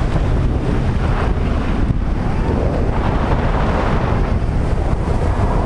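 Wind rushing over and buffeting a pole-mounted camera's microphone while riding a parasail, a loud steady rumble.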